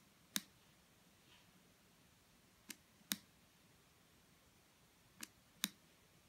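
Sharp clicks in pairs, the two in each pair under half a second apart, with three pairs about two and a half seconds apart; otherwise near silence.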